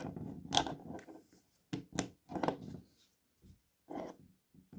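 Plastic LEGO pieces being handled and pressed together, a few sharp clicks among rustling: the Hulk figure's hands going onto their pegs.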